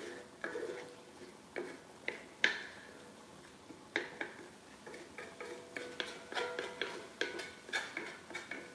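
Wooden spatula stirring diced carrots in a skillet, scraping and knocking against the pan at irregular intervals; the loudest knock comes about two and a half seconds in.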